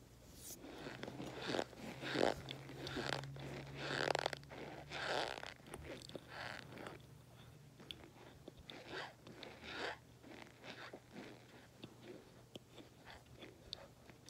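A person chewing and crunching hard chunks close to the microphone. Loud crunchy bites come thick in the first few seconds, then give way to softer chewing with small clicks.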